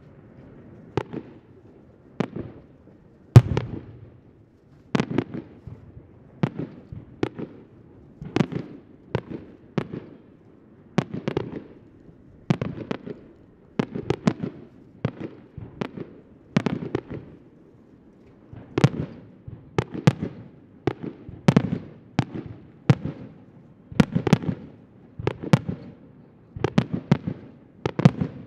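Fireworks display: aerial shells bursting one after another in a steady run of sharp bangs, about one or two a second, each trailing off briefly. The loudest bang comes a little over three seconds in.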